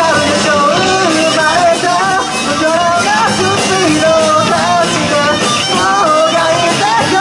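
Live rock band playing through a club PA: electric guitars, bass and drums under a sung lead vocal melody.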